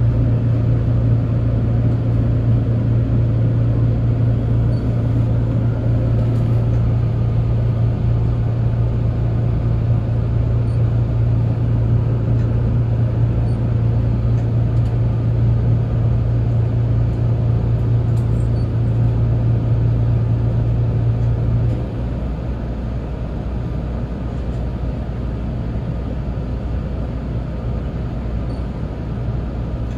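Resort Shirakami HB-E300 series hybrid diesel train running, heard from inside the car: a steady low hum over the running rumble. About 22 seconds in the hum cuts off suddenly, leaving a quieter rumble.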